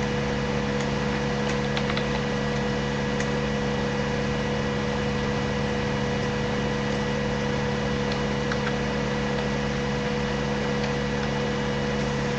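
A steady hum holding several fixed pitches at an even level, with nothing starting or stopping.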